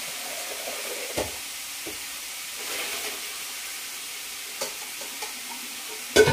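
Bacon sizzling steadily in a frying pan on high heat, with a few clinks and knocks of kitchenware, the loudest just before the end.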